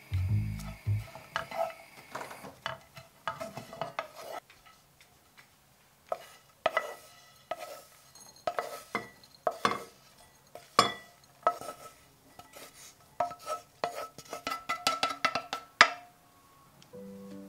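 A kitchen utensil stirring in a mixing bowl, with irregular clinks and knocks against the bowl, some ringing briefly. The clinks come quickest just before the end. Background music comes in briefly at the start and again near the end.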